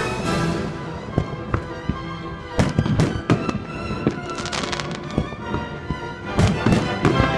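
Fireworks going off, a string of separate bangs with a burst of crackling around the middle, heard together with music that holds steady tones.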